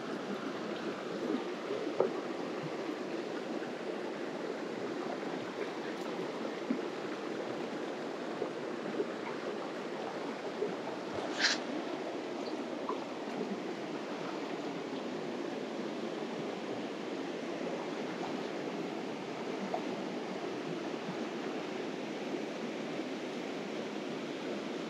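Shallow mountain stream running over rocks: a steady rush of water, with a few light knocks early and one brief sharp click about eleven seconds in.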